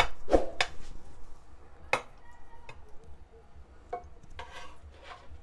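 A serving spoon knocking and scraping against a dish as stewed beef is spooned out: a few sharp clicks, then a short stretch of scraping near the end.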